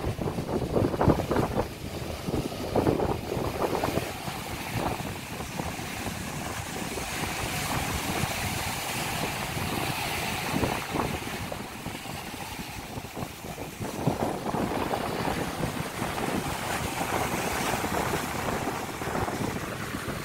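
Rough surf breaking and washing over a concrete seawall, with wind buffeting the microphone, heaviest in the first few seconds.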